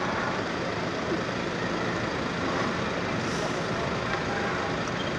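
Steady rumble of vehicle traffic, with no distinct events.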